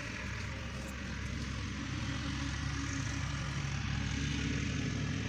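A motor engine running steadily at idle, a low even hum with hiss above it.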